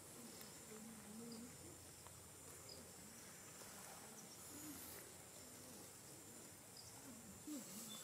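Faint forest ambience: a steady high-pitched insect drone, with faint low wavering calls coming and going, more of them near the end.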